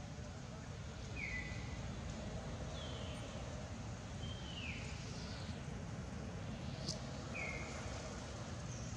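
Steady outdoor background noise with a few short, high-pitched chirping animal calls a second or two apart, some falling and one arching in pitch.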